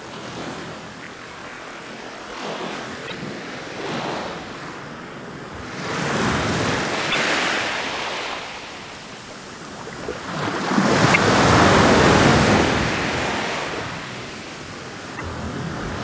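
Ocean waves washing and breaking in slow surges, one swell about six seconds in and a louder one about eleven seconds in.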